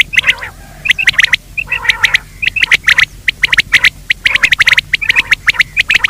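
Recorded game-bird lure call: loud, harsh, sharp notes given in quick clusters of several a second, one cluster after another with only short gaps.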